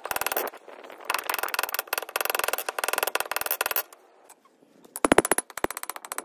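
Hand hammer beating a narrow copper strip on a steel anvil in rapid, even blows with a metallic ring. The blows stop for about a second just past the middle, then start again with a few heavier strikes.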